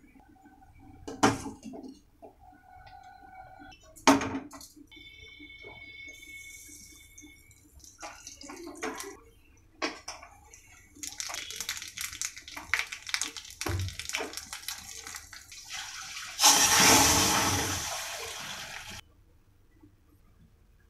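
Two sharp utensil knocks, then spices spluttering and crackling in hot oil in a small tempering pan. Near the end comes the loudest part: a loud sizzling hiss of about two seconds as the hot tadka is poured into the pot of dal. It stops suddenly.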